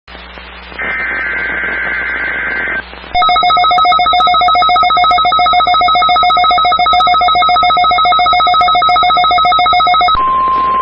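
NOAA Weather Radio test alert. About a second in there is a two-second burst of SAME digital header data tones. From about three seconds in comes a rapid pulsing electronic alert beep of several pitches at once for about seven seconds. Near the end it gives way to the steady 1050 Hz weather radio warning alarm tone.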